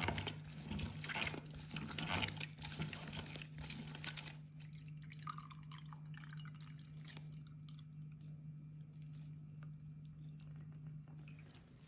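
Orange half pressed and twisted on a ribbed glass hand juicer, a wet squishing and rubbing for the first four seconds or so. Then the juice is poured from the juicer into a glass, a faint trickle.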